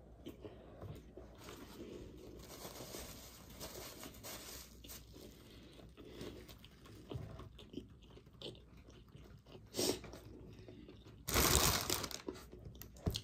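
Close-up chewing of a crispy fried chicken sandwich with the mouth closed: soft crunching and wet mouth clicks. A louder, brief rush of noise comes about two seconds before the end.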